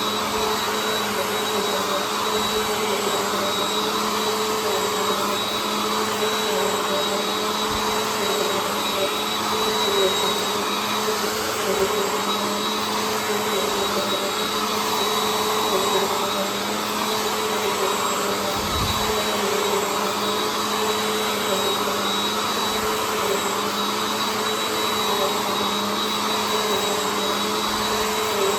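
Bissell CleanView Compact upright vacuum running steadily while vacuuming, a constant motor whine with a single low bump about two-thirds of the way through.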